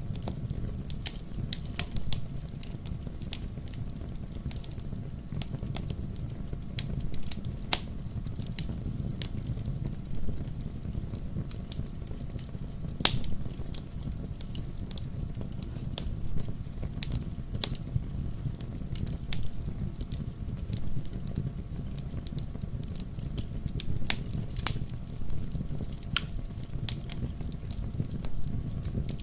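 Wood bonfire crackling, with irregular sharp pops scattered through it over a low steady rumble.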